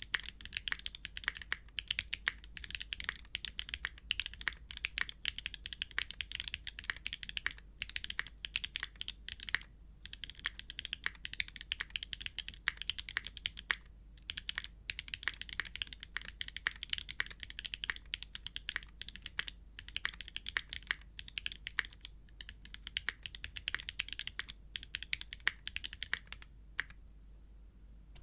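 Continuous fast typing on a custom TKL mechanical keyboard with factory-lubed Kailh Calligraphy linear switches in an aluminium plate on an O-ring mount, capped with GMK ABS keycaps: a steady stream of crisp key clacks with a few short pauses. The typing thins out near the end and stops.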